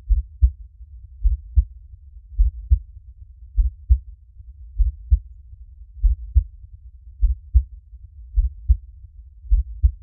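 Slow, steady heartbeat, each beat a deep double thump (lub-dub), a little over one beat a second, with a faint low rumble between beats.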